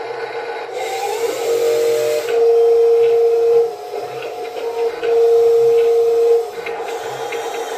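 Electric gear motors of a Huina 1583 RC metal wheel loader whining as the bucket tilts, in two loud, even stretches of about a second and a half each over a steady lower hum.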